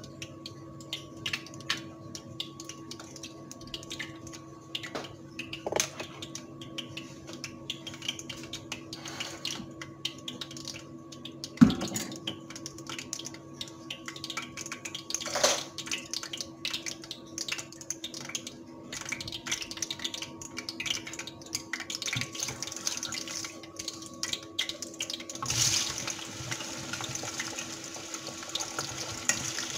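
Oil heating in a small frying pan, with scattered faint crackles over a steady hum and one sharp knock about halfway through. About 25 seconds in, raw potato sticks are tipped into the hot oil and it breaks into a loud, continuous sizzle of deep-frying.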